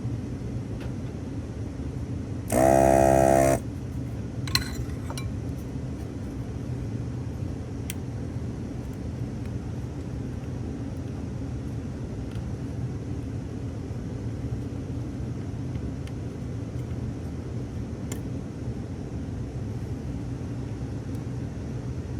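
Hakko FR-301 desoldering gun's vacuum pump buzzing loudly for about a second, a few seconds in, as it sucks molten solder from a joint, over a steady low hum.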